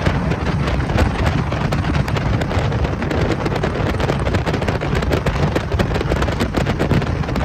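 Wind buffeting the microphone: a loud, steady low rumble with constant crackle.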